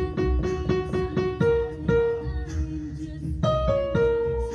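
Music on a piano-like keyboard: a quick string of short repeated notes, then a few longer held notes over a low pulse.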